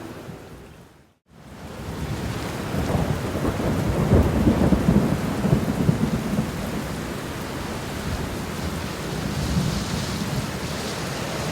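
Steady rain with rolling thunder. The rain fades out to a moment of silence about a second in and returns; a low rumble of thunder builds about three seconds in and eases off after about seven seconds.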